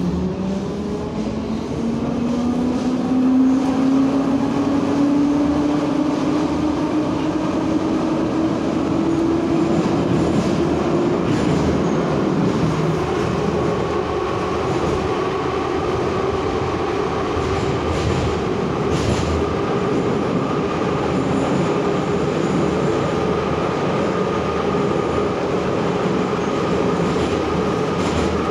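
Kharkiv metro train accelerating away from a station, heard from inside the passenger car: the traction motors' whine rises steadily in pitch over the first ten seconds or so, then levels off into steady running with wheel and rail rumble and a few sharp knocks from the track.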